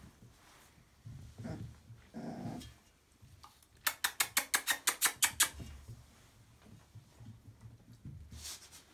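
Puppies eating dry kibble from steel bowls and scuffling in wood shavings. About two seconds in comes a short puppy growl. Near the middle there is a quick run of about a dozen sharp crunching clicks, about eight a second, the loudest sound here.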